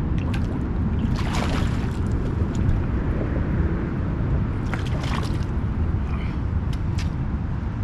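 A hooked fish splashing at the water's surface as it is played to the bank, about a second in and again around five seconds in, over a steady rumble of wind on the microphone.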